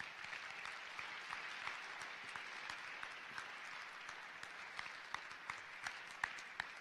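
Audience applauding, thinning near the end to a few separate claps.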